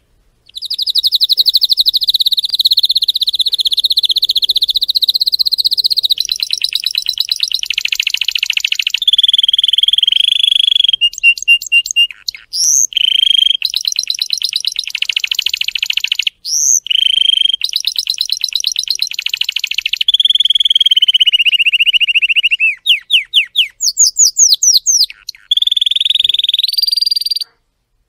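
Canary singing a long, varied song: high rapid trills held for several seconds at a time, alternating with quick runs of falling sweeping notes. The song stops shortly before the end.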